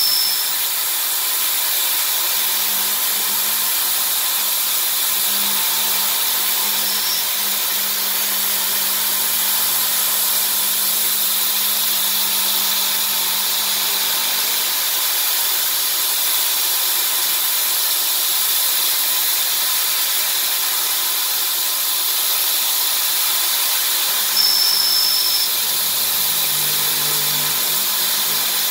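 CNC vertical machining center milling aluminium: the spindle runs an end mill steadily through the block with a high-pitched hiss and whine of cutting. A short high squeal sounds near the end.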